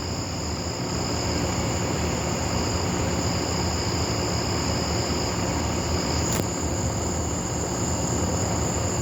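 Night insects trilling steadily at two high, unbroken pitches over a steady low rumble; a single faint click about six seconds in.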